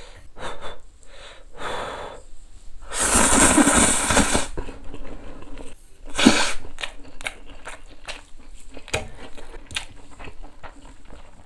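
A person slurping up a mouthful of Buldak spicy stir-fried noodles in one long loud slurp about three seconds in, and another short slurp about six seconds in. Then comes close-up chewing with many small wet clicks.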